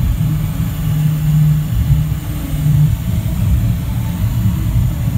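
Cockpit noise of a Dassault Falcon 7X business jet taxiing after landing: a steady low rumble with a low drone that wavers in the second half.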